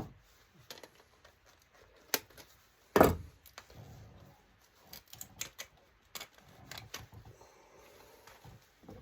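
Scattered clicks, clacks and knocks of hand-dismantling scrap electronics, with one louder knock about three seconds in.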